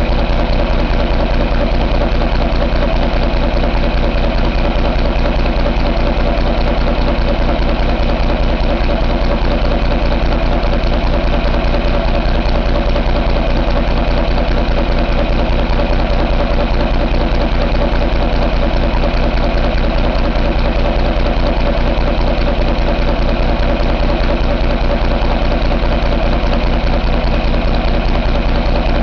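2013 Cummins ISX15 inline-six diesel engine idling steadily, heard close up in the open engine bay.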